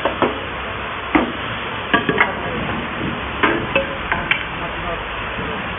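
Cut wood pieces knocking and clattering as they are handled and set down on a table saw's metal table, about ten short sharp knocks, over a steady hiss of machinery running.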